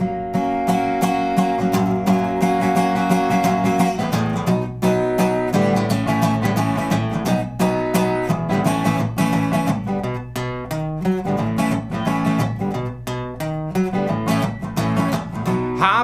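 Acoustic guitar strummed in a steady rhythm, the chords changing every second or so; an instrumental passage with no singing.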